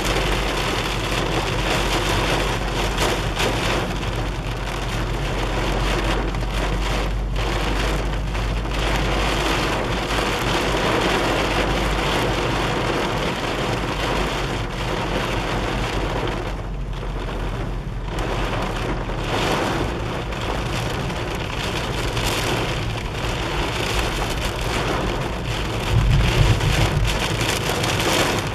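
Heavy rain drumming on a car's roof and windscreen, heard from inside the moving car over a steady low hum. Near the end a brief, louder low rumble rises above the rain.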